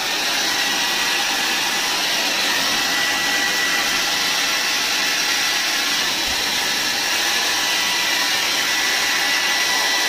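Ionic hair dryer running on its third, cold-air setting: a steady rush of air with a thin steady whine over it, coming up to speed at the start.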